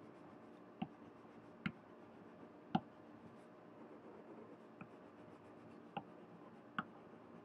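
Faint scratching of a light green coloring pen shading in on paper, with six short, sharp ticks spread through it.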